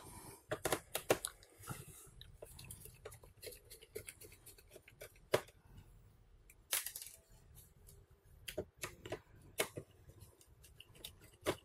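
Scattered small clicks and taps of a precision screwdriver working the corner screws out of a Toshiba Satellite C855D's plastic screen bezel, at irregular moments.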